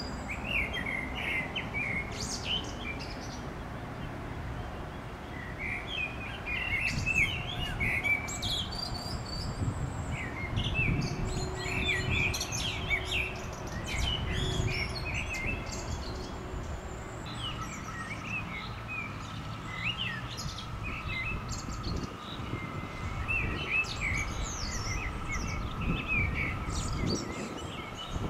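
Songbirds chirping and singing in quick, overlapping phrases, over a steady low background rumble. A faint steady tone joins about two-thirds of the way through.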